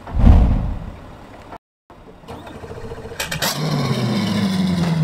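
A deep whoosh in the first second, then, about three seconds in, a new Mercury 200 V6 outboard engine cranks and catches, its revs dropping and settling into a steady idle.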